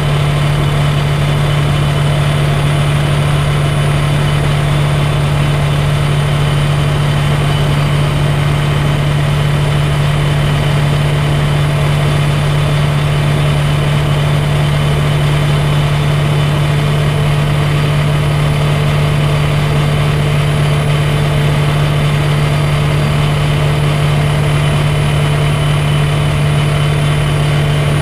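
Light aircraft's piston engine and propeller running steadily at cruise, heard inside the cockpit: a constant low hum with airflow hiss over it and no change in pitch or level.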